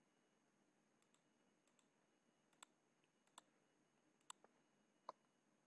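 Near silence broken by four faint, sharp clicks spaced roughly a second apart: a computer being clicked while paging through a document on screen.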